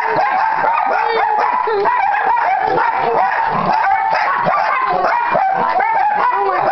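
A pack of puppies yipping and whining all at once in excited greeting, many short high-pitched calls overlapping without a break.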